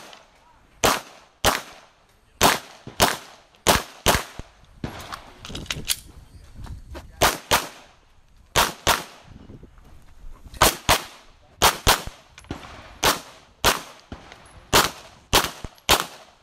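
Pistol gunfire: about two dozen shots, mostly in quick pairs with irregular pauses between them, each followed by a short echo.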